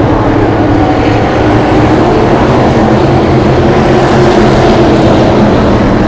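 Modified race car's V8 engine running hard at racing speed, heard close up from an on-board camera: a loud, steady engine drone with wind noise.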